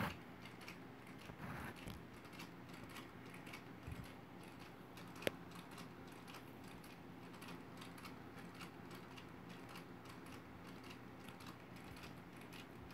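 Quiet room tone with faint irregular ticking and one sharp click about five seconds in.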